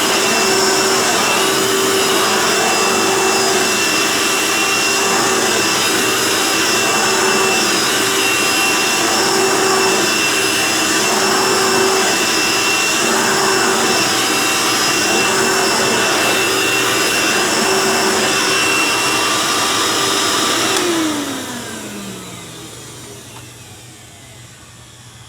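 Old Hoover vacuum cleaner's motor running with a steady whine, then switched off about 21 seconds in and winding down, its pitch falling as it slows: a little bit of a rusty wind down.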